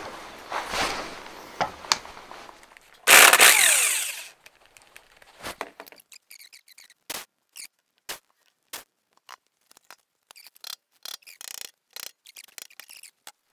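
A cordless power drill runs in one short spurt about three seconds in, its pitch sliding as it spins a wheel nut. Scattered light clicks and knocks follow as the wheel and hardware are handled.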